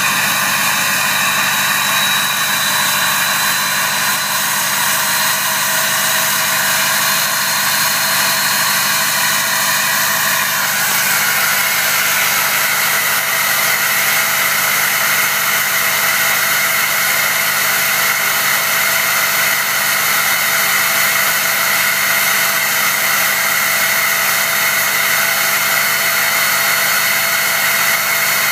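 Ford F-250 turbo diesel engine running steadily with a high turbo whistle over the engine note. About eleven seconds in, the whistle slides up a little in pitch and grows stronger, then holds steady.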